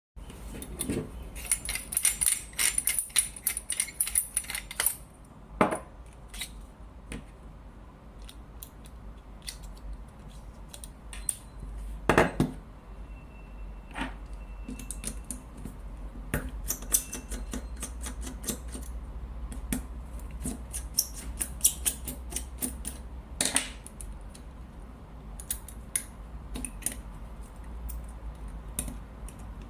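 Small metal parts of a lightsaber hilt's lamp head being handled and unscrewed: a quick run of clicking and clinking in the first few seconds, then scattered clicks and taps. A low steady hum runs underneath.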